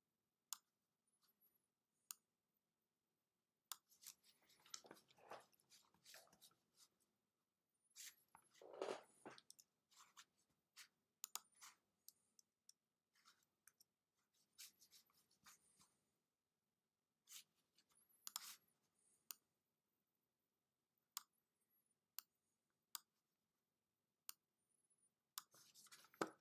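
Faint computer mouse clicks scattered through near silence, with a few short stretches of scratchy rubbing as the mouse slides on the desk during editing.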